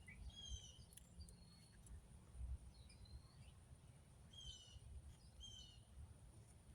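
Faint birdsong: a short phrase of high, falling chirps heard three times, once near the start and twice in quick succession later, over a faint low rumble.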